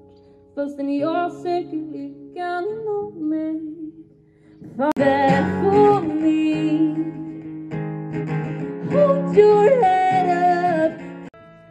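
A woman singing live to her own acoustic guitar. It starts as a soft, sparse passage, and about five seconds in the strumming and voice come in louder and fuller.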